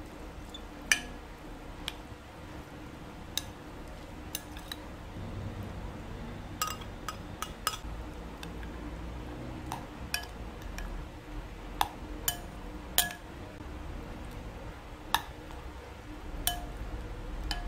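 Metal spoon stirring a wet mix of chopped onion and beaten egg in a glass mixing bowl, clinking and tapping against the glass at irregular moments.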